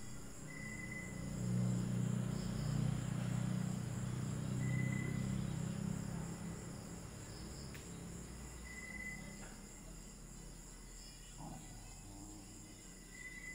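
Night insects such as crickets chirping steadily, with a short high call repeating about every four seconds. A low hum sits under them in the first half and fades after about six seconds.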